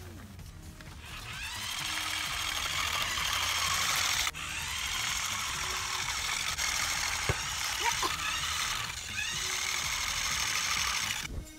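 Small electric motors and gearboxes of a homemade battlebot made from remote-control toy cars whirring as it drives. It runs in spurts, spinning up with a rising whine and stopping briefly about four seconds in and again near nine seconds.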